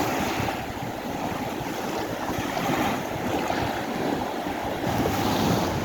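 Storm-driven sea surf washing ashore in a strong wind, with the wind buffeting the microphone as a steady rushing noise.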